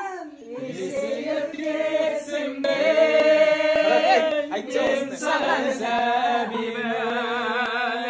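Singing of a Kazakh song in long held notes, with a wavering vibrato near the end.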